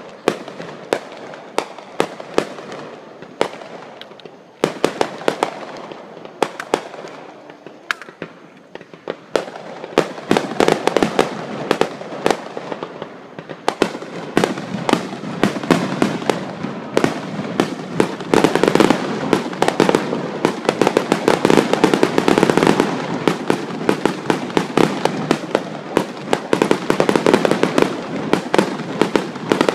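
Aerial fireworks display: a continuous run of sharp shell bursts and crackling. It grows denser and louder from about ten seconds in and is busiest a little past the middle.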